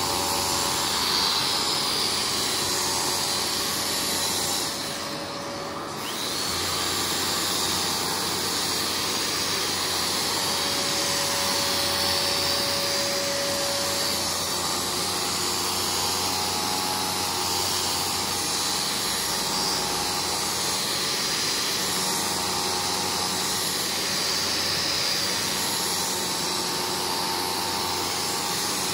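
Kärcher carpet-cleaning vacuum running steadily, dipping briefly about five seconds in.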